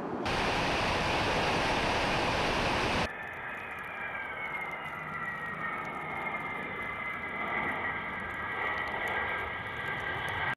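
A loud, steady rushing noise of air and engines for about three seconds cuts off suddenly. It gives way to the whine of a Tu-160 bomber's four NK-32 turbofans as it rolls along the runway, several tones falling slightly and then holding steady.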